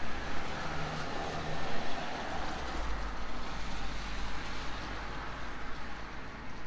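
Jet airliner passing overhead, a broad rushing roar with a deep rumble underneath that eases off toward the end.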